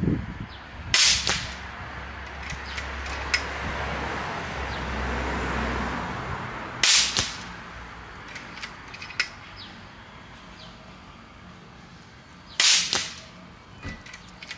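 Three shots from a Vulcan PCP air rifle firing 40-grain slugs at about 1,080–1,090 feet per second. Each is a sharp crack with a quick second report, and the shots come about six seconds apart. Lighter clicks come between the shots, and a rushing noise runs for a few seconds after the first shot.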